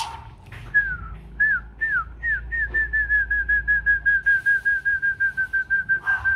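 A person whistling: four short falling whistles, then a quick run of short notes at one steady pitch, about five a second, going on past the end.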